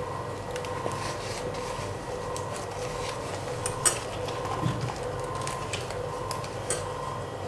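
Wilted banana leaf being folded and pressed into a parcel by hand: soft rustles with scattered light crackles and clicks, the clearest about four seconds in, over a steady faint hum.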